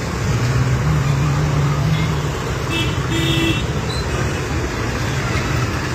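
Road traffic on a wet city street: a steady noise of engines and tyres, with a low engine hum strongest in the first two seconds. A vehicle horn toots briefly about three seconds in.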